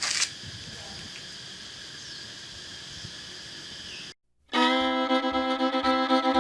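A steady background with faint high thin tones and a short burst of noise at the very start, then a sudden drop to silence and, about four and a half seconds in, fiddle music begins loud and sustained.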